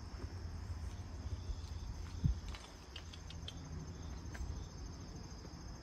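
Insects trilling in a steady, high, continuous chorus, over a low rumble on the microphone, with a soft thump about two seconds in and a few faint clicks.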